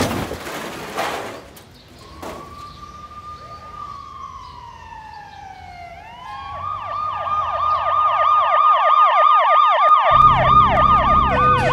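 Emergency vehicle siren: first one tone gliding slowly downward, then a rapid rising-and-falling yelp, about three to four cycles a second, that grows louder. A low vehicle rumble joins about ten seconds in. At the very start a loud noisy burst dies away over the first second or so.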